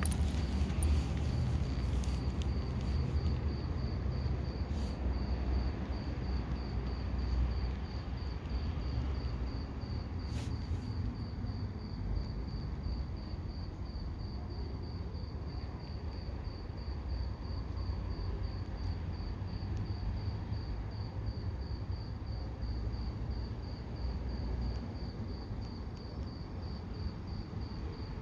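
A cricket chirping steadily in evenly spaced high-pitched chirps, about two to three a second, over a low rumble of background noise. A few clicks and taps come near the start as the watch is picked up and handled.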